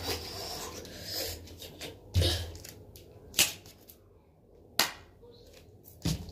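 A person moving about close to the phone: some rustling, then four short sharp knocks and thumps, roughly a second and a half apart, the first with a dull low thud.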